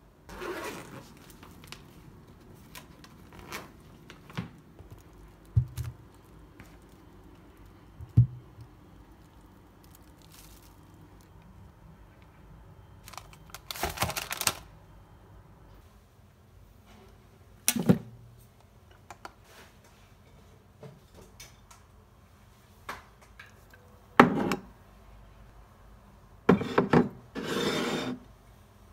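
Household objects being handled: scattered knocks and thumps as things are packed and set down, with short bursts of crinkly packet rustling about halfway through and again near the end.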